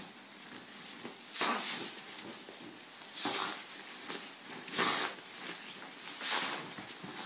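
Small dog, freshly bathed, rubbing its head and body against a duvet: four short bursts of fabric rustling, about a second and a half apart.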